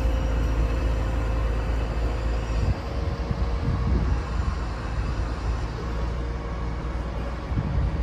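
Heavy diesel construction machinery running steadily: a low engine rumble with a thin steady hum above it.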